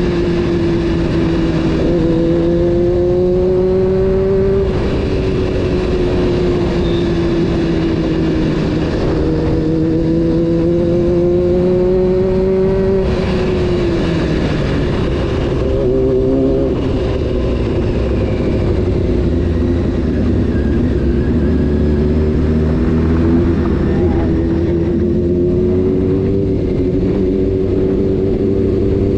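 Honda CBR600 F4's inline-four engine under way, revving through the gears: the note climbs, drops with a shift about five seconds in, climbs again and falls away around thirteen seconds, then runs lower and slowly rises toward the end.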